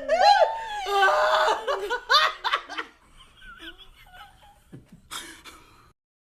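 A woman laughing uncontrollably in rapid, high peals of laughter. The laughter dies down after about three seconds into fainter sounds, then stops abruptly just before the end.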